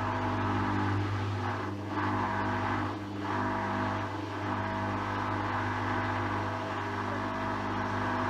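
Hoover washing machine running steadily with a motor hum, as the wash cycle moves into its spin.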